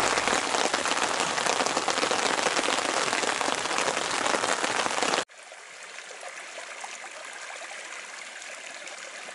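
Steady rain pattering on the tarp overhead, dense and loud, cutting off suddenly about five seconds in. After that a muddy runoff stream rushes over rocks, quieter and steady.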